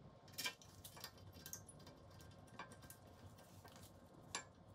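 Faint, scattered light clicks and taps of hand work on a car's rear brake assembly at the hub, with the sharpest clicks about half a second in and near the end, over near silence.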